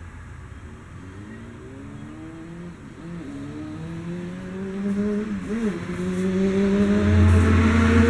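A motor vehicle's engine revving up, its pitch climbing slowly and growing louder, with brief wavering dips.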